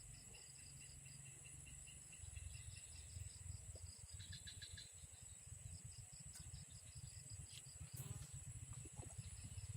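Insects trilling outdoors: a steady high-pitched drone with rows of quick, repeated chirps, over a low rumble.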